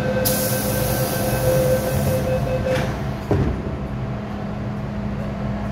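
MTR M-Train standing at the platform with a steady electrical hum. A held tone and a high hiss cut off together about three seconds in, followed by a single thump.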